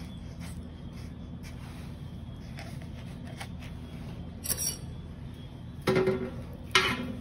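Metal spoons scraping softly through breadcrumbs in a stainless steel bowl while a croquette is coated, then clinking against the bowl twice near the end with a brief metallic ring. A steady low hum runs underneath.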